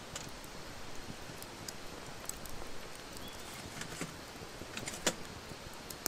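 Wood campfire crackling, with irregular sharp pops and snaps over a steady hiss; the loudest snap comes a little after five seconds in.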